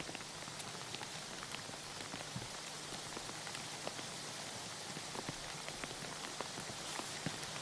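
Rain falling steadily, a soft even hiss with many scattered single drops ticking.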